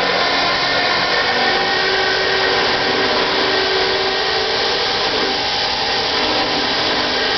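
Truck-mounted winch running steadily under load, reeling in its cable to pull a shrub out of the ground by the roots.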